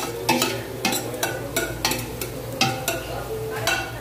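Metal spoon scraping and clinking against the bottom of a stainless steel pot, stirring chopped aromatics in hot oil, with a light sizzle of frying underneath. The strokes come about two or three a second.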